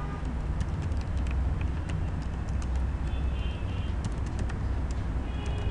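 Computer keyboard keys clicking in an irregular run as text is typed, over a steady low hum.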